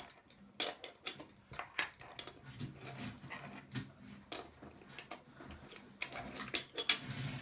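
Lego bricks clicking and snapping as a small Lego train model is pulled apart and fixed back together: a run of irregular light clicks.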